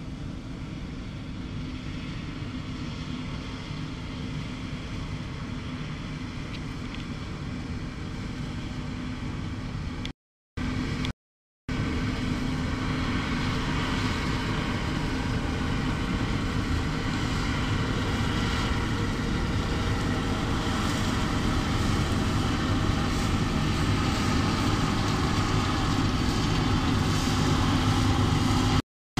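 Bizon BS Z110 combine harvester's diesel engine and threshing machinery running at a steady pitch, growing louder as the combine comes closer. The sound drops out completely twice, briefly, about ten seconds in.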